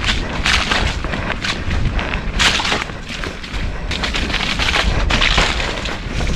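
Mountain bike riding fast down a muddy, rooty trail: tyres running over mud and roots, with repeated knocks and rattles from the bike over bumps. Wind rumbles on the helmet camera's microphone throughout.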